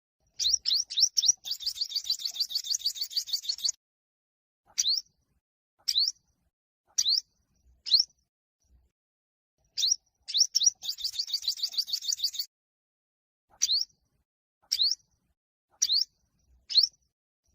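Olive-backed (yellow-bellied) sunbird singing its territorial fighting song. Quick, sharp upslurred notes run into a fast, high trill of about two seconds, twice, with single rising chips about a second apart in between.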